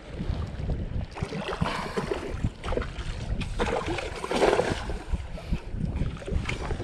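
Wind rumbling on the microphone and choppy water slapping against a kayak hull, with scattered small knocks and clicks.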